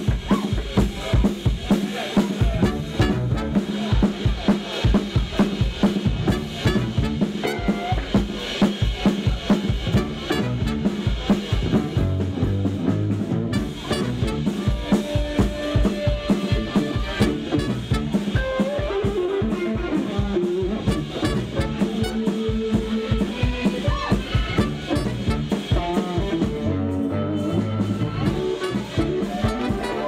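Live funk-soul band playing: a drum kit keeps a steady beat with snare and bass drum under electric guitar, bass guitar and horns (trombone and baritone saxophone).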